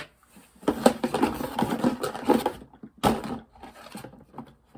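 Plastic fidget toys handled and moved on a tabletop: about two seconds of scraping and clattering, then a single sharp knock about three seconds in, followed by a few light clicks.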